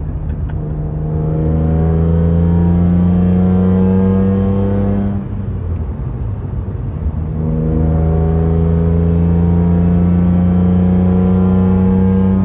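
BMW E46 M3's S54 3.2-litre inline-six accelerating hard through the Karbonius CSL carbon intake, with its intake sound heard from inside the cabin. The engine note climbs steadily for about four seconds, falls away for about two seconds, then climbs again for about five.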